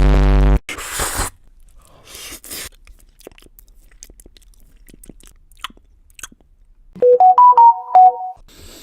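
A loud, distorted noisy blast cuts off suddenly about half a second in, followed by faint crackling clicks. Near the end comes a quick tune of electronic beeps, about eight short notes at three or four pitches.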